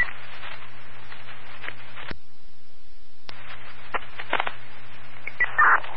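Fire department radio channel heard through a scanner between transmissions: steady static hiss with a low hum and crackles. About two seconds in, a click opens a second of smoother hiss that ends with another click, a transmission keyed with no words, and a short squawk comes near the end.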